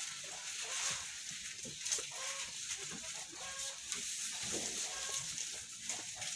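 Dairy goats eating fresh-cut Pakchong grass: steady rustling and crisp tearing and chewing of the leaves. A few short calls from other animals sound in the background about two and a half seconds in and again later.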